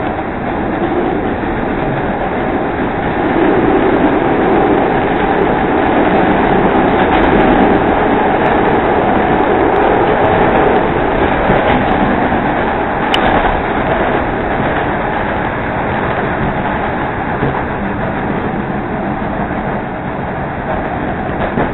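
CTA Red Line rapid-transit train running at speed, heard from inside the car: steady wheel-on-rail and running noise that swells a few seconds in and eases toward the end, with one sharp click about 13 seconds in.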